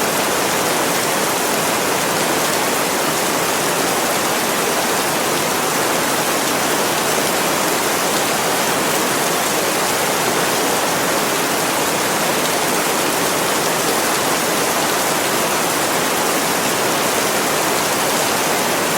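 Steady rain, an even unbroken hiss that holds level throughout.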